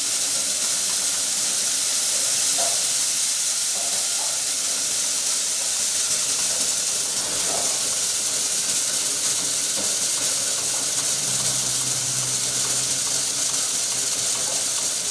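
Chopper machine running with its 8 hp diesel engine: a steady rushing hiss with a faint low hum underneath.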